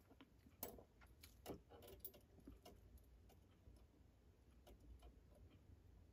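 Faint, scattered light clicks and taps of small metal clock-movement parts being handled, at irregular intervals.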